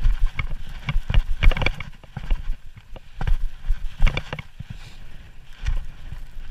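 A hiker's footsteps crunching and scraping on snowy, rocky ground, with irregular sharp clicks.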